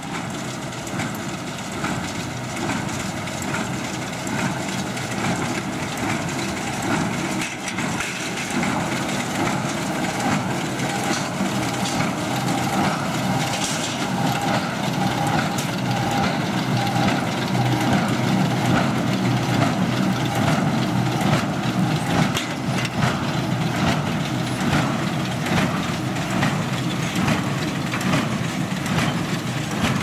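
International small square baler working in straw behind a John Deere 6125R tractor: the tractor's engine runs steadily under the repeated knocking of the baler's plunger compressing straw into bales.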